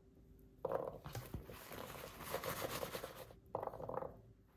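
Peeled garlic cloves dropped by hand onto a paper towel and pushed around, with the paper rustling and scratching. There are louder handfuls about half a second in and again about three and a half seconds in.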